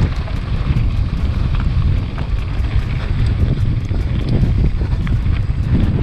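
Strong wind buffeting the microphone of a camera on a moving mountain bike, a loud, continuous low rumble, with many small clicks and rattles from the bike on gravelly ground.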